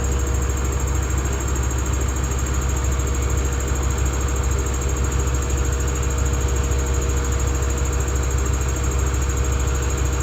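Washing machine running steadily on rubber anti-vibration pads, with a constant low hum and a faint steady whine.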